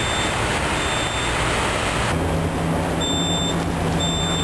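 A short, high electronic beep repeating about once a second over steady engine and street noise. After a cut just past two seconds, a low steady hum sits under the continuing beeps.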